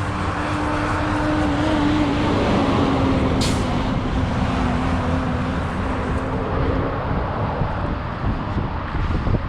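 Street traffic: a heavy vehicle's engine drones past over a steady road rumble, with a short hiss about three and a half seconds in.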